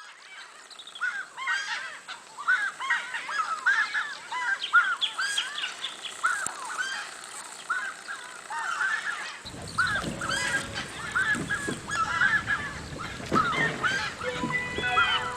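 A flock of birds calling, many short honking calls overlapping in quick succession. A low background noise joins about two-thirds of the way through.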